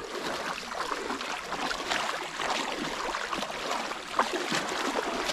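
Pond water swishing and lapping around legs wading through it, a steady splashy rustle with one sharper splash a little past four seconds in.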